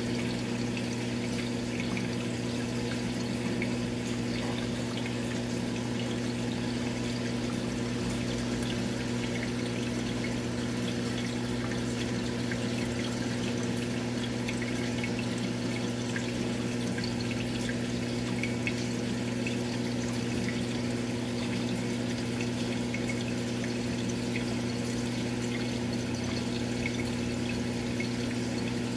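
Aquarium pump humming steadily over a constant trickle of water.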